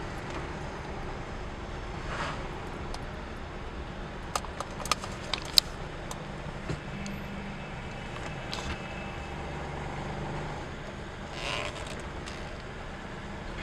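Car engine running steadily, heard from inside the cabin. A few sharp clicks come about four to five seconds in, and three brief rushing swells of noise pass during the drive.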